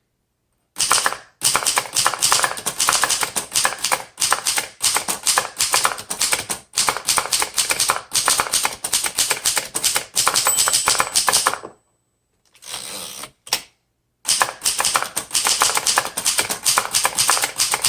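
A 1938 Remington Portable Deluxe typewriter being typed on in quick runs of key strikes. After about twelve seconds of steady typing there is a short pause with a brief softer noise, then typing resumes.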